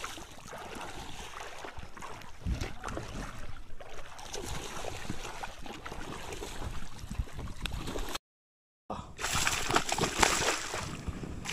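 Water splashing and sloshing as a hooked snakehead fish thrashes at the surface. The sound cuts out completely for under a second about eight seconds in, then comes back as louder splashing.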